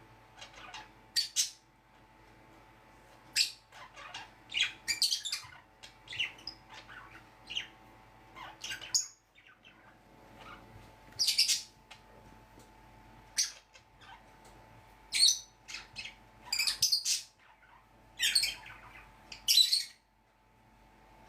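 Pet lovebirds and budgerigars squawking and chirping: short, sharp, shrill calls in irregular bursts, the loudest coming every second or two.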